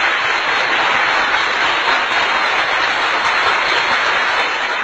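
Canned applause: a crowd clapping steadily and densely.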